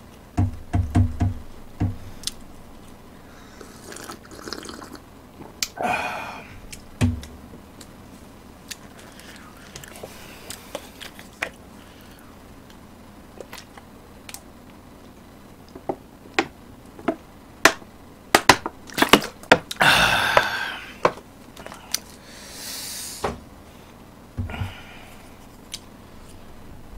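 Eating and drinking sounds at a table: a wooden ladle scooping kimchi stew, and chopsticks and spoon clicking against the metal pot and bowls. A few short wet slurping sounds come in between, the loudest about twenty seconds in.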